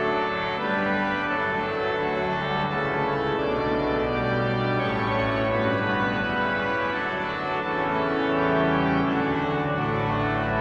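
Viscount Canticus 50 digital church organ playing slow, held chords over a sustained bass line, the chords changing every second or two.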